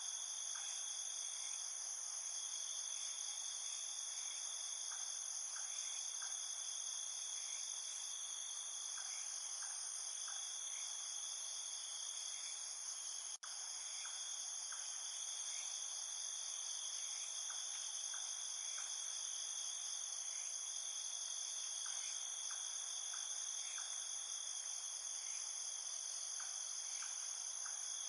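Steady insect chorus: continuous high trilling at several pitches, with scattered short chirps. It cuts out for an instant about halfway through.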